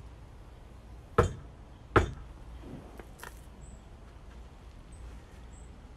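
Two sharp knuckle knocks on a front door, a little under a second apart, followed by a much fainter click.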